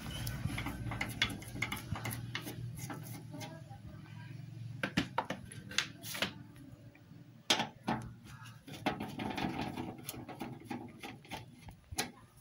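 Scattered clicks, knocks and scraping from an amplifier's case being handled while its seal is broken and the case opened. A passing motor vehicle fades out in the first couple of seconds.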